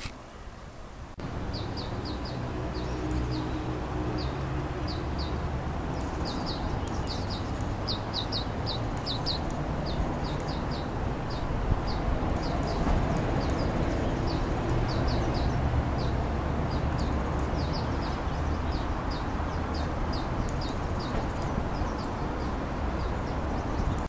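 Small birds chirping in quick runs of short, high chirps over a steady rush of flowing river water, starting about a second in.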